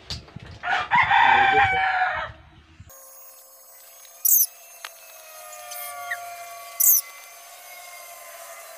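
A rooster crows once, loud, near the start. After that the sound thins abruptly to a quieter steady background, broken twice by short, sharp, high-pitched hissing bursts.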